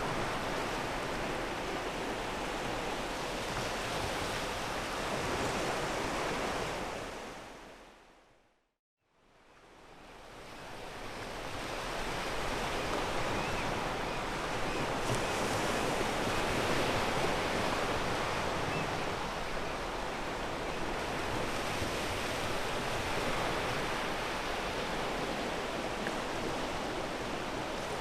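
Ocean waves washing onto a pebble beach, a steady surf. About eight seconds in the sound fades out to silence for a moment and then fades back in.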